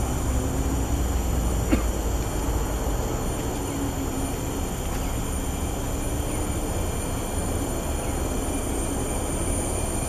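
Steady low background rumble with a faint wavering hum, and a single sharp click a little under two seconds in.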